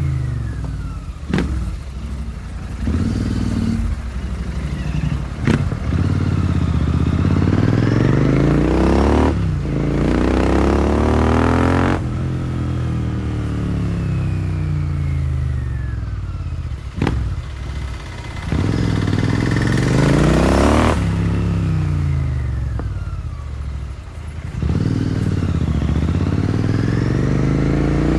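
Royal Enfield Continental GT650's parallel-twin engine running through a Powerage short cone aftermarket exhaust while riding: it revs up through the gears with a break in the pitch at each shift, then falls in pitch as it slows, with a few sharp cracks along the way.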